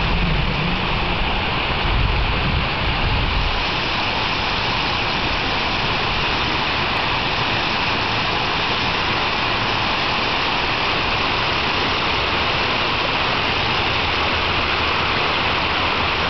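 Steady rushing of running water, an even hiss that does not let up, with wind buffeting the microphone in the first few seconds.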